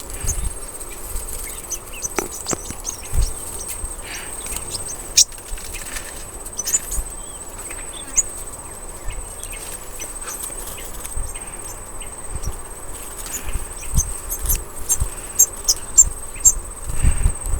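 A steady, high insect drone runs throughout, with many short high chirps and ticks scattered over it and a few low knocks, denser near the end.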